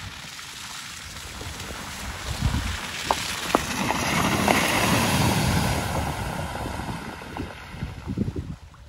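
Toyota RAV4 Hybrid driving past on a wet, muddy track: its tyres hiss and splash through mud and puddles, swelling as it passes about halfway through and fading as it pulls away, with a few sharp ticks in the middle. Wind buffets the microphone.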